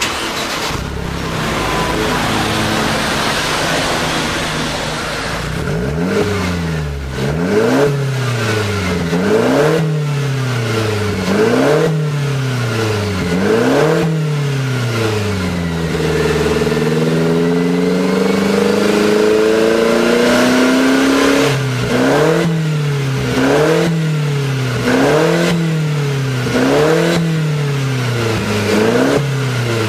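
Mercedes SLK200 CGI's turbocharged four-cylinder running through a HE'ART aftermarket exhaust with quad tips. It idles for about six seconds, then is revved in repeated short blips, held up at higher revs for about five seconds midway, then blipped again several times.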